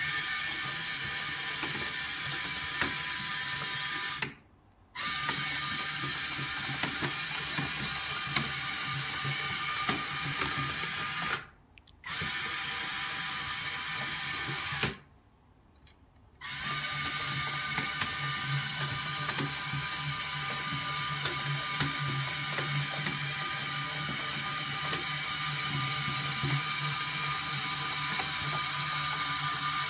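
Small electric gear motors of a 3D-printed four-track RC crawler running with a steady mechanical whine, stopping briefly three times as the crawler is driven slowly and lowered.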